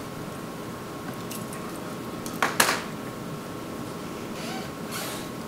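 Quiet meeting-room tone with a faint steady hum, broken about two and a half seconds in by two sharp knocks close together.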